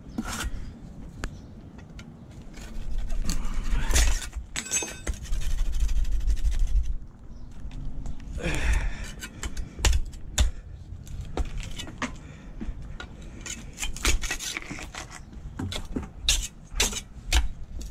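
Steel pointing trowel scraping excess mortar out of flagstone joints and knocking it into a plastic bucket: a run of sharp scrapes and clicks, thickest in the second half. A low rumble comes in for a few seconds near the start.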